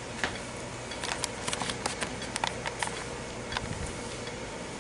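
A scatter of light clicks and rustles from handling, clustered in the middle stretch, over a steady low hum.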